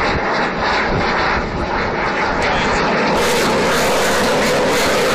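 Engine noise of a display airplane flying over the airfield, a steady rushing drone that grows fuller and a little louder about three seconds in.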